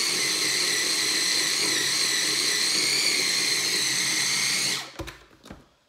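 Electric mini chopper's motor whirring steadily as its blade works through a thick, tightly packed tempeh and roasted-vegetable mix, a load it is small for. The motor cuts off just before five seconds in, followed by a few light knocks.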